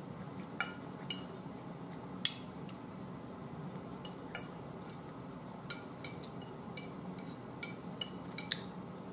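Metal fork clinking and scraping against a dinner plate: about fifteen light, irregular clinks over a faint steady background hum.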